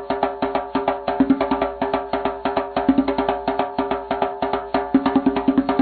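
Background music: a fast, steady beat of sharp percussive strikes, several a second, over sustained pitched notes.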